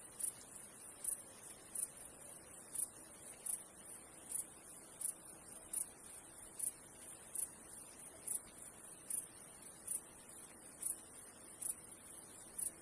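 Insects chirping in a steady, very high-pitched pulse, about two chirps a second, over a faint even hiss of running water.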